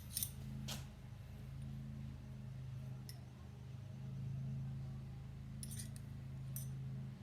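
Two metal combination spanners, a Kincrome and a Toptul 12 mm, clinking lightly against each other as they are handled: a couple of clicks near the start and a few more near the end, over a steady low hum.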